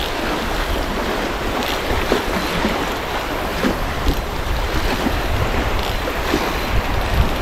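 Wind buffeting the microphone with a low rumble, over waves washing on the lake shore; a few faint, irregular ticks.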